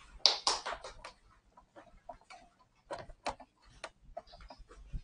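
Footsteps on a hard floor, heard as irregular sharp clicks and taps, the loudest cluster about a third of a second in and a few more around three seconds in.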